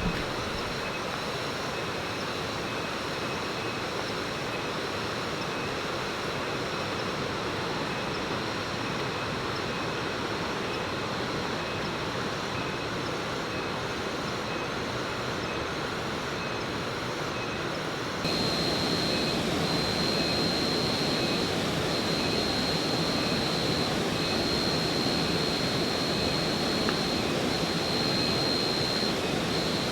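Steady rushing of a nearby waterfall. It gets suddenly louder about eighteen seconds in, where a thin high tone starts pulsing on and off above it.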